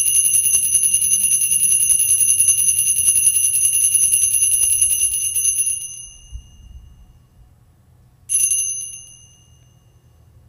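Altar bells shaken in a continuous rapid jingle, rung at the elevation of the chalice at the consecration. The ringing fades out about six seconds in, and a second short shake follows about two seconds later.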